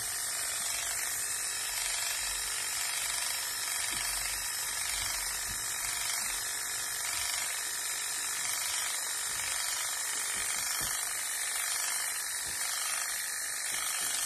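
Electric pet clippers running steadily as they shave the fur around a crusted hot spot on a dog's head.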